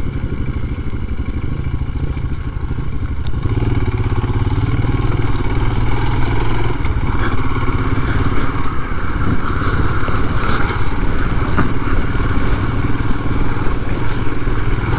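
Royal Enfield Himalayan's 411 cc single-cylinder engine running under load while the motorcycle rides a rough, rutted dirt track, heard from the rider's seat. It gets louder a few seconds in, with some clattering from the bike over the bumps.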